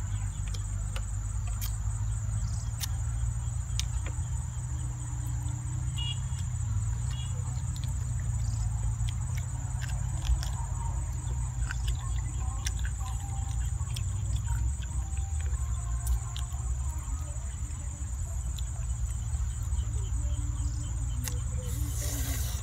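Close-up eating sounds: boiled chicken torn apart by hand and chewed, with many small wet clicks and one louder click about ten seconds in. Behind it, a steady high insect chorus and a low steady rumble.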